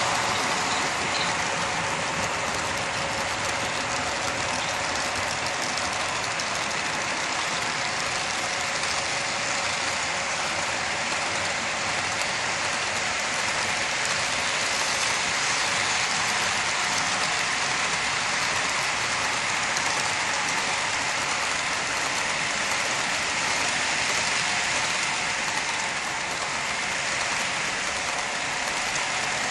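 HO scale model freight cars rolling past on track: a steady, high-pitched rolling rattle of small wheels on rail.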